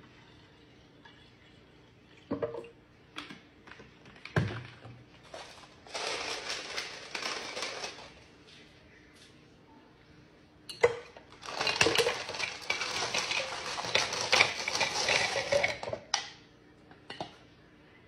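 Ice and coffee going into a glass mason jar: a few knocks and clinks, then two stretches of pouring, a short one and a longer one of about five seconds, with ice clinking against the glass.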